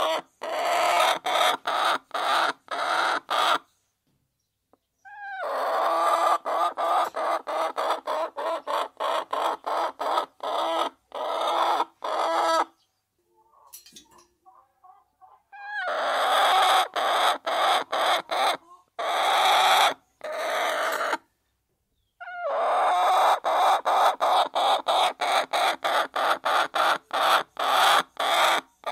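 A flock of hens clucking as they feed, in long choppy stretches of rapid, repeated sound. Three times the sound breaks off into a silent gap of a second or two.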